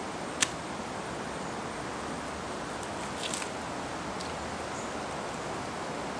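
Steady rush of flowing stream water, with one sharp click about half a second in and a faint brief rustle about three seconds in.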